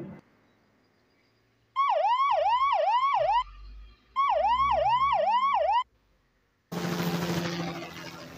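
Ambulance siren sound effect: two bursts of quick rising whoops, about four in each, each sweep climbing and then dropping back sharply. Near the end a different, steady noisy sound with a low hum starts.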